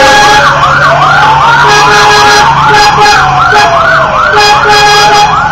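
Sirens sounding together: a fast yelp repeating about three times a second over a slower rising and falling wail, with short steady horn-like tones breaking in and out over the hum of vehicle engines.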